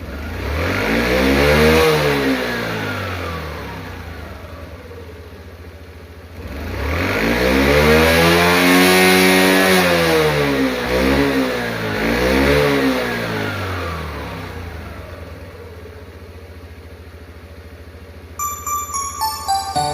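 Suzuki Birdie engine, running again after repair, idling and being revved by hand: one rev about two seconds in, a longer rev from about seven to ten seconds, then two short blips before it settles back to idle.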